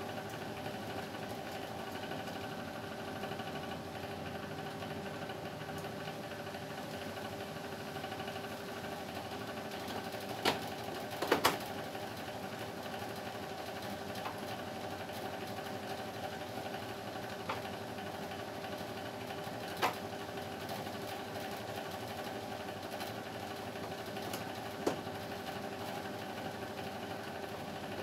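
Wall-mounted split air conditioner indoor unit running with a steady hum. A handful of sharp plastic clicks stand out as the louver is handled, the loudest a quick cluster of snaps about a third of the way in.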